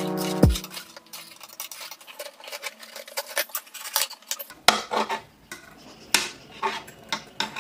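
Irregular small metallic clicks and light scraping of a woven silver foxtail chain being worked by hand against a metal rod, with a few sharper clicks in the second half. At the very start, background music cuts off with a quick downward pitch drop.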